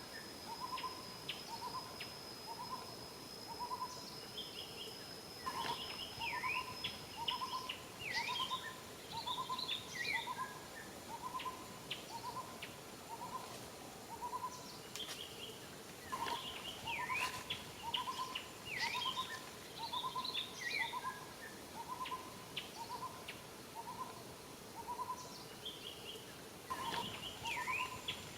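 A bird repeating a short hooting note over and over, about one every 0.7 s, in long runs with brief breaks, while other birds chirp in higher, falling notes.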